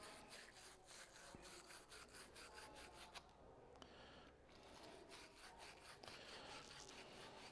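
Faint, repeated scratchy strokes of a wire fitting brush twisted inside a 22 mm copper straight coupling, scrubbing it clean of dirt and grease before fluxing and soldering.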